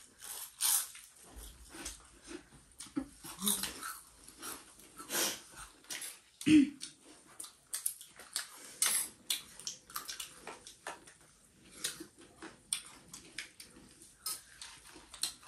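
Close-up eating sounds: crisp pani puri shells and chatpate being crunched and chewed, heard as many short, irregular crackles and clicks. About six and a half seconds in comes a short, low voice sound that falls in pitch.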